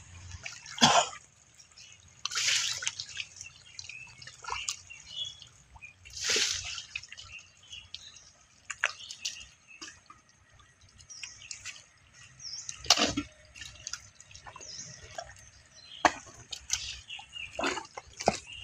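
Hands and legs squelching and splashing through wet mud and shallow muddy water, with scattered drips and small sloshes; a few louder splashes stand out, irregularly spaced.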